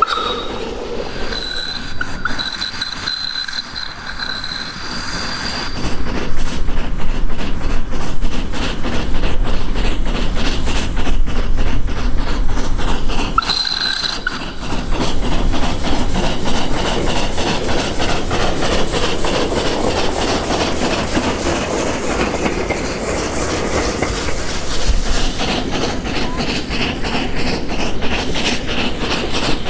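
The Coffee Pot steam railcar (Steam Motor Coach No.1) working uphill, its exhaust beating rapidly and its wheels running over the rail joints. It gets louder about six seconds in as it comes close. Brief high-pitched squeals come near the start and again about halfway.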